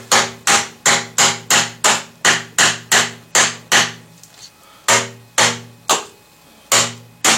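Hammer blows driving PVC pipe risers down into their fittings: about eleven quick strikes, roughly three a second, then a short pause and five more spaced out, each knock ringing briefly with a hollow tone. The sound of each tap tells whether the pipe is fully seated in the fitting.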